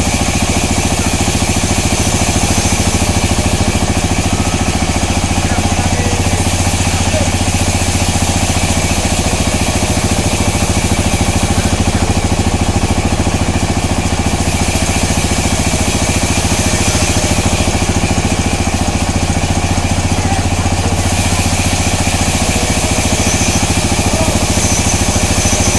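Sawmill machinery running steadily with a strong low hum, and a brighter edge to the sound that swells and fades a few times.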